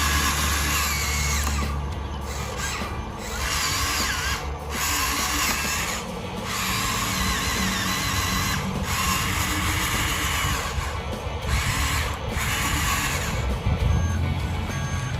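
Small electric motors and gearboxes of a radio-controlled construction model whining as they work, stopping and starting again several times in short runs.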